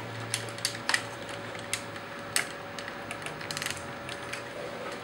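Scattered small clicks and ticks of plastic and die-cast parts being handled as the hand and energy-nail accessory are fitted onto a Bandai Soul of Chogokin GoldyMarg action figure, with a quicker run of ticks about three seconds in.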